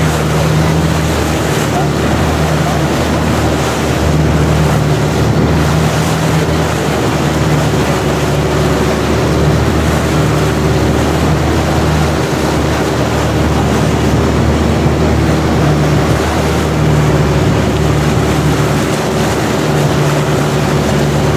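Long-tail boat's engine running steadily at cruising speed, a loud continuous drone, mixed with the rush of water and wind.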